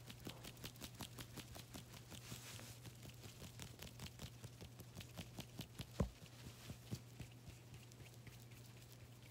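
Hands rubbing and tapping close to the phone's microphone, a quick run of soft clicks and taps with one louder knock about six seconds in, over a low steady hum.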